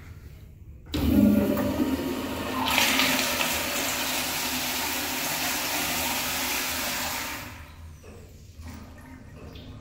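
Flushometer-valve flush of a Kohler commercial toilet. A sudden rush of water comes about a second in and grows to a loud, hissing whoosh that holds for several seconds. It drops off abruptly near the end to faint trickling.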